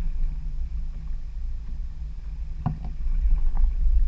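Low, fluctuating rumble of wind and choppy water around a kayak at sea, with one short knock about two-thirds of the way through.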